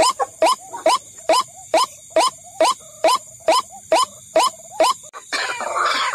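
White-breasted waterhen (ruak-ruak) calls used as a lure: harsh, clipped 'kru-ak' notes repeated a little over twice a second. About five seconds in they give way to a dense, continuous chatter of calls.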